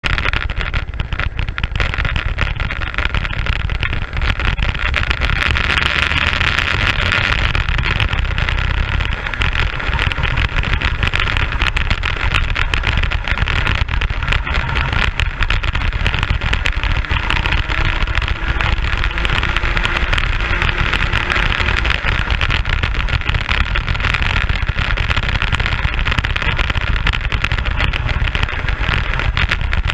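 Racing kart engine running hard at speed on track, heard from the onboard camera, with a constant low rumble underneath.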